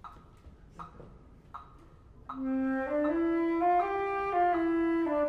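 A solo concert flute plays a slow C-major scale exercise, starting on low C and rising note by note before turning back down. Three soft ticks about a beat apart come before it.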